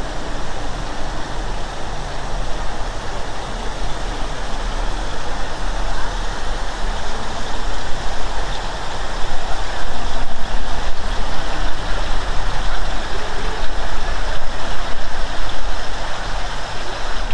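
Steady rushing wash of running water from a shallow reflecting pool, mixed with city road traffic, with a low rumble underneath; it grows louder about halfway through.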